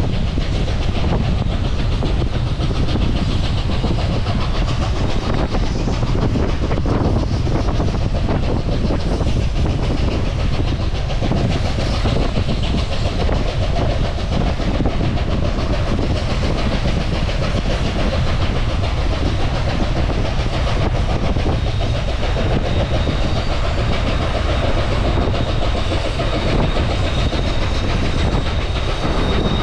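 Train hauled by Reading & Northern steam locomotive 2102 running on the track, with a steady, unbroken rumble of wheels on rails. A faint high steady tone joins about three quarters of the way through.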